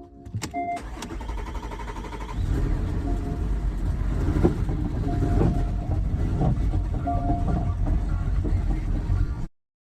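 Porsche Cayenne's VR6 engine starting and running with an uneven, stumbling note, typical of the misfire caused by a failing high-pressure fuel pump. A few short electronic chime tones sound as it starts.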